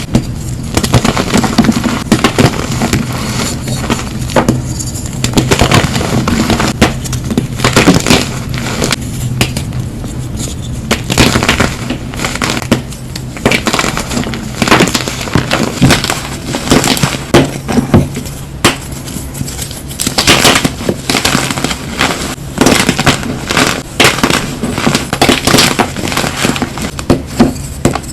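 Brittle, crunchy material being crushed in a continuous run of dense crackling and snapping, over a steady low hum.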